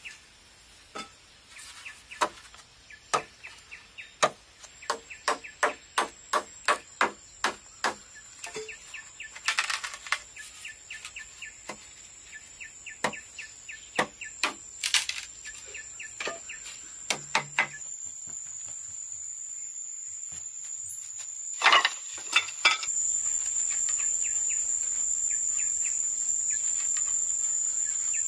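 A string of sharp, irregular knocks, roughly one to two a second, for the first two-thirds. Then a cricket's steady high trill takes over and grows louder, broken by two loud knocks about 22 seconds in.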